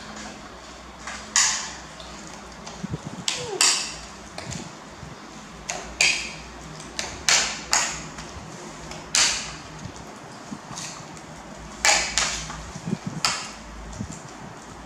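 Metal spoon scraping and clinking against a ceramic bowl while a wet mixture of shredded potato and raw pork is stirred, about a dozen sharp strokes at uneven intervals.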